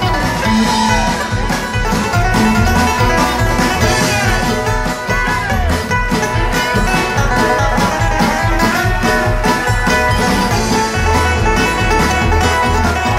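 A live string band playing amplified bluegrass-style music with a steady beat, banjo and guitar among the instruments over a low bass line, heard from the back of a large room.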